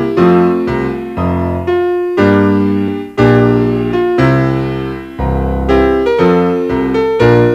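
Background piano music: a run of struck notes and chords, each fading away before the next is played.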